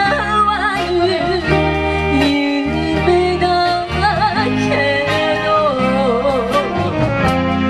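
Live band playing a song: a woman singing a wavering, vibrato melody over drums, bass and electric guitar.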